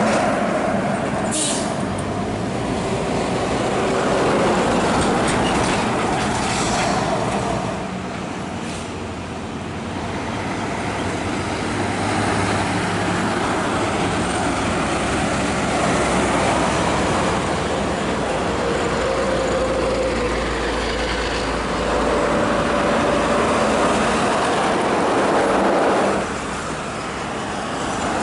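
Heavy diesel tractor-trailers hauling grain passing one after another on a highway: engines running and tyres rumbling, the noise swelling and fading as each truck goes by. A short hiss about a second and a half in.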